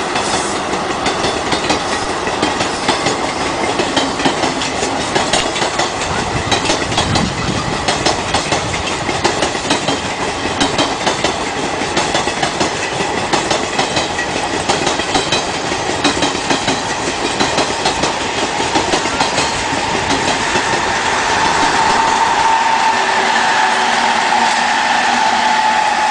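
Passenger coaches of an electric-hauled express train rolling past on a climbing gradient, the wheels clicking steadily over the rail joints. Toward the end a steadier, louder hum builds as the twin WCG2 electric banking locomotives pushing at the rear draw close.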